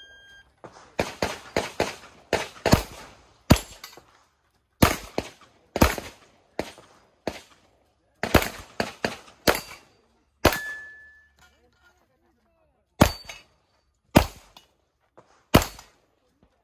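A shot-timer beep, then a USPSA steel course of fire: fast strings of two to five gunshots with short pauses between them. Now and then a hit steel plate rings briefly after a shot.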